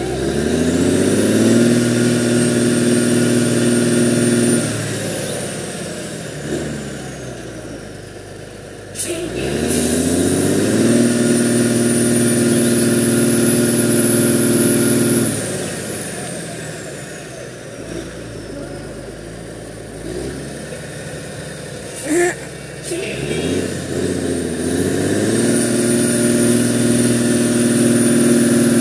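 Diesel engine of a loaded tractor-trailer revved hard three times, each rev climbing, held for several seconds and dropping back, with a high whistle rising and falling along with it, as the truck strains to pull through deep mud. Two brief sharp noises come in the lulls between revs.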